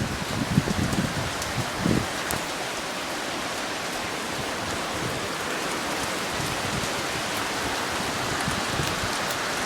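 Heavy rain falling in a storm, a steady hiss of rain on surfaces, with a few low thumps in the first two seconds.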